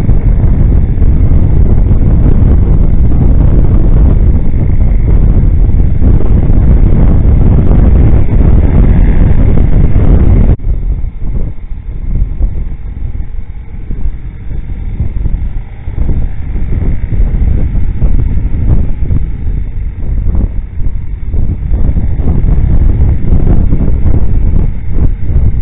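Wind buffeting the microphone of a camera on a moving motorcycle, a dense low rumble over the riding noise. It is at full strength at first, drops abruptly about ten seconds in, then carries on in uneven gusts.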